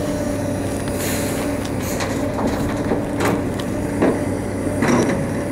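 A steady low engine drone with a few short, light knocks about a second apart over it.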